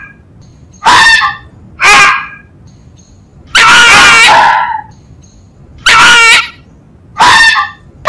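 A fox calling: five loud, short calls at uneven intervals, the middle one held for about a second.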